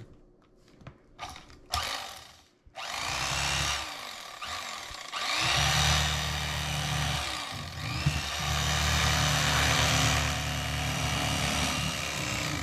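Mister Twister Electric Fisherman electric fillet knife running as its blades cut a fillet off a trout along the backbone. It starts about three seconds in, after a few soft knocks, and hums steadily, its pitch dipping and rising again a few times as the blades work through the fish.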